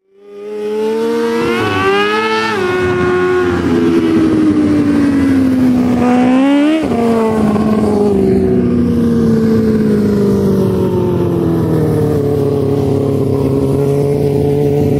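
600 mini sprint's 600cc motorcycle engine running at high revs on a dirt track. The pitch climbs twice under acceleration and drops sharply each time the throttle is lifted, then slowly falls lower. The sound fades in at the start.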